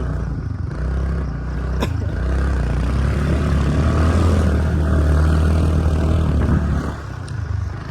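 Small scooter engine running under load, louder through the middle stretch and easing off near the end. A single sharp click about two seconds in.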